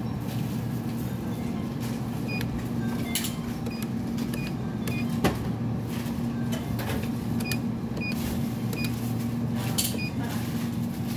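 Short electronic beeps from a touchscreen ATM keypad as an account number is keyed in, a beep at each press every second or so, over a steady low hum. A sharp click sounds about five seconds in.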